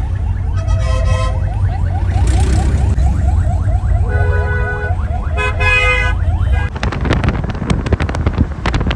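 Road traffic: a low engine rumble with vehicle horns honking in three held toots over a fast, repeating warbling tone, then a run of sharp clicks near the end.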